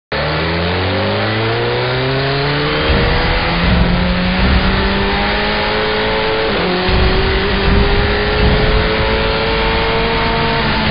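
Motorcycle engine accelerating hard through the gears, its pitch climbing in three pulls and dropping at the upshifts about three seconds and six and a half seconds in, with wind rushing past.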